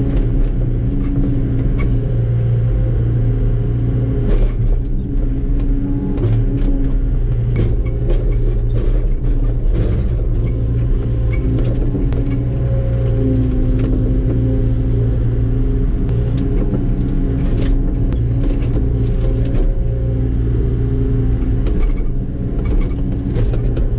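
Komatsu PC75UU-2 mid-size excavator's diesel engine running steadily, heard from inside the cab. Hydraulic whine changes pitch as the controls work, with scattered knocks from the bucket moving stones.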